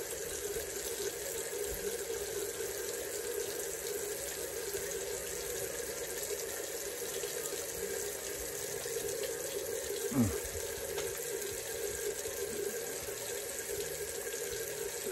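Water tap running steadily into a sink, with one short low sound falling in pitch about ten seconds in.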